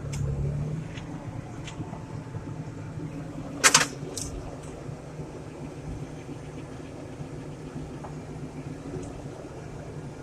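John Deere 8770 four-wheel-drive tractor's diesel engine running steadily, heard from inside the cab while it pushes and packs a silage pile. A single sharp clack sounds about four seconds in, with a fainter click just after.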